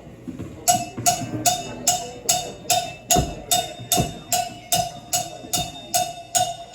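A live band's percussion intro to a rock song: a steady, evenly spaced knocking beat with a short woody ring, about two and a half strokes a second, starting about a second in. Two bass drum hits land near the middle.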